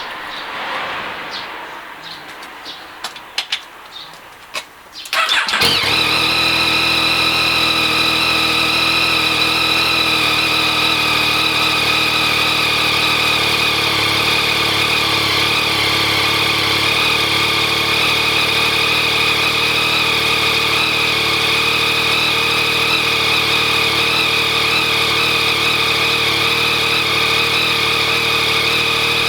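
A Yamaha MT-09's inline-three engine starting from cold after a few seconds of faint clicks, catching about five and a half seconds in and then idling steadily as it warms up. The owner is listening for a rattling, ticking abnormal noise from the engine, still there after a cam chain tensioner countermeasure part was fitted.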